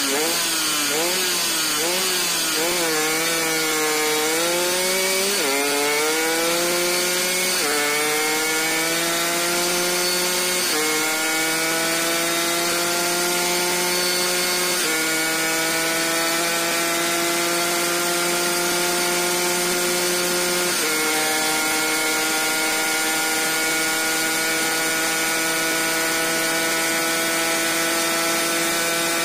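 Yamaha 125Z single-cylinder two-stroke engine at full throttle through the gears. The pitch wavers during the launch, then rises in each gear and drops suddenly at five upshifts over roughly the first twenty seconds. In top gear it climbs slowly and holds steady at high revs.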